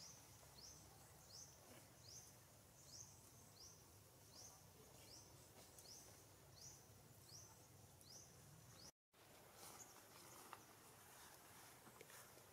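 Faint outdoor background with a short, high chirp that sweeps upward, repeated about every three-quarters of a second. About nine seconds in, the sound drops out for an instant and the chirping stops; after that only the faint background remains, with a few soft clicks.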